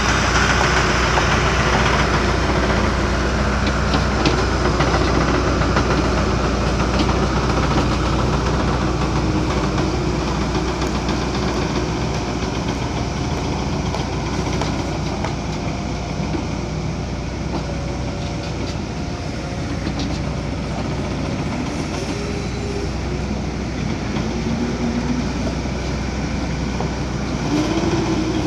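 Backhoe loader's diesel engine running steadily as it works, with a few rising and falling whines in the second half as the revs or hydraulics change.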